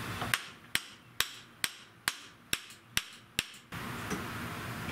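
Hammer blows: eight sharp, evenly spaced strikes at about two a second, each with a short ring.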